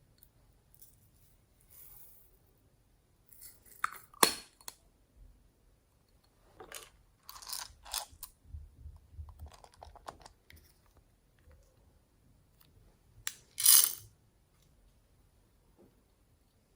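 Slime being squished and pulled by hand, giving scattered sticky clicks and crackly pops, with the loudest crackles about four seconds in and near fourteen seconds.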